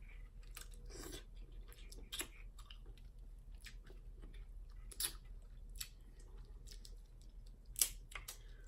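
Close-up eating of a seafood boil: quiet chewing with scattered sharp clicks and cracks of crab and lobster shells, the loudest snap near the end.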